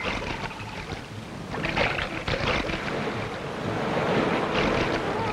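Sea surf and splashing water: an uneven rush of waves that grows louder after about a second and a half.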